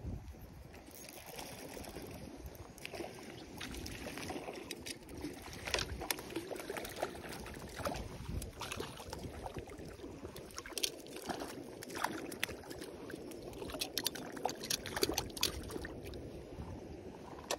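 Irregular water splashing and sloshing, a run of short splashes over a steady watery wash.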